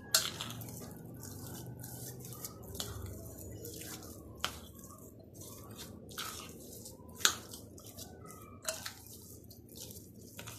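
A spoon stirring a thick, wet semolina-and-vermicelli batter in a glass bowl: soft wet squelching, with a few sharp clinks of the spoon against the glass.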